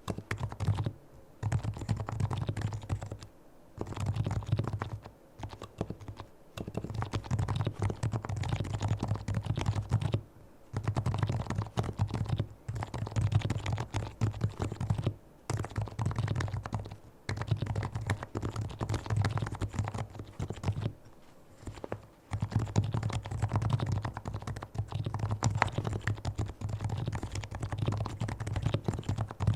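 Typing on a fully lubricated Leopold FC660C Topre electrostatic-capacitive keyboard: fast runs of keystrokes broken by short pauses.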